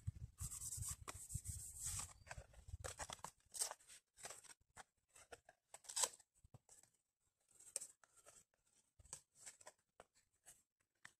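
Faint, scattered rustling, scraping and clicking of camping gear being handled and packed away, with a low rumble during the first three seconds.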